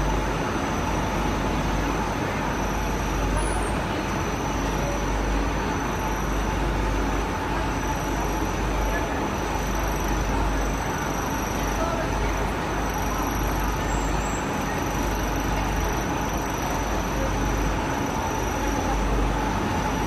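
Steady running noise of industrial machinery in a carbonization furnace plant: a constant deep rumble with an even mechanical din and a faint steady whine.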